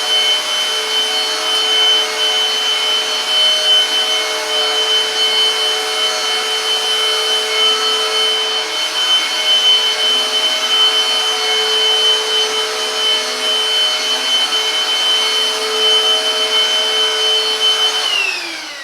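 Silvercrest Cordless Cyclone Aqua handheld vacuum cleaner running steadily, its motor making a high whine over a rush of air while it mops and vacuums the floor. Near the end it is switched off, and the whine falls in pitch and fades as the motor spins down.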